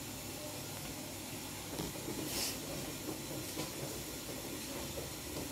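Steady background hiss, with one faint, brief rustle about two and a half seconds in.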